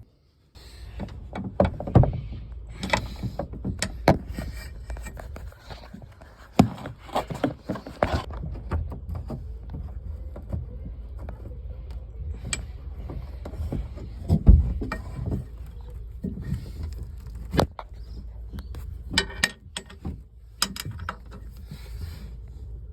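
Irregular knocks, clicks and clatter of hands and tools working on a fibreglass boat, at uneven intervals over a steady low rumble.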